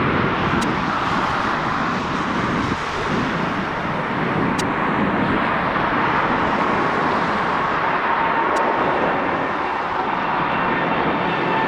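Boeing 787 jet engines at takeoff thrust as the airliner climbs away just after liftoff: a steady, loud jet roar, with a faint engine whine coming up in the second half.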